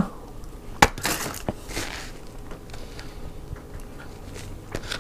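A person eating close to the microphone: a sharp crisp bite about a second in, then chewing and mouth noises with a few small clicks.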